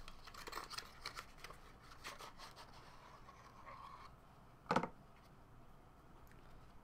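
Faint rustling and small clicks of a cardboard trading-card pack being handled and opened and its stack of cards slid out, with one sharp knock about two-thirds of the way through.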